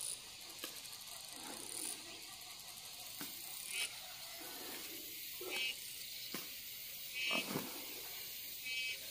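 Three short, repeated animal calls a second or two apart, over a steady high hiss, with a few light knocks and rustles.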